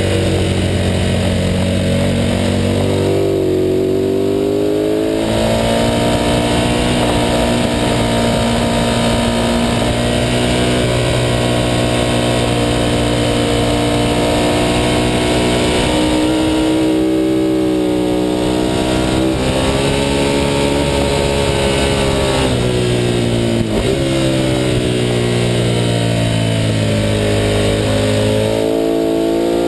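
Onboard sound of a Ducati 916's 90-degree V-twin at racing speed, its engine note climbing through the revs and stepping with each gear change, falling away on the downshifts into corners, with wind rushing over the bike.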